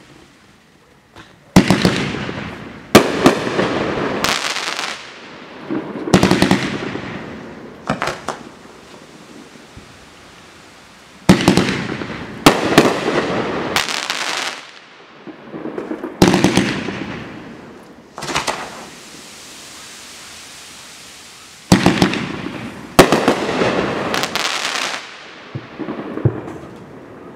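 24-shot consumer fireworks cake (Dominator 'Chillax') firing in volleys: sharp bangs as the shells break, each trailed by a crackle that fades over a second or two, with lulls of a few seconds between the volleys.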